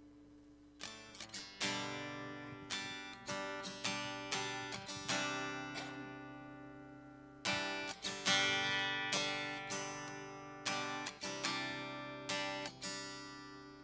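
Acoustic guitar strummed in a steady rhythm as an instrumental passage of a worship song. A held chord is dying away at first, and the strumming starts about a second in.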